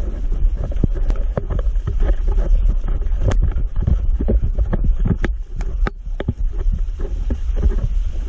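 Volcanic steam vent in a glacier ice cave, rushing with a steady low rumble and scattered irregular pops and crackles.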